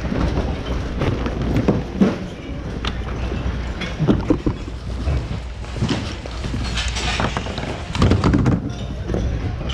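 Rummaging through thrift-store bins: many short knocks and clatters of items being handled, over a steady low hum, with bits of voices in the background.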